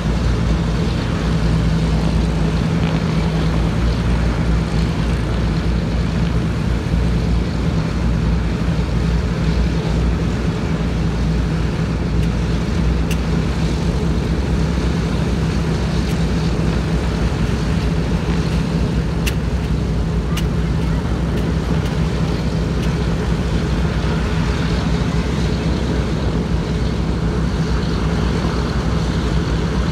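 Radial piston engines of WWII four-engine bombers running at a steady idle, a deep even drone with no change in pitch or level.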